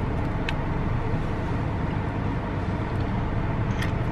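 Steady low rumble of a car running, heard from inside the cabin, with a couple of faint small ticks.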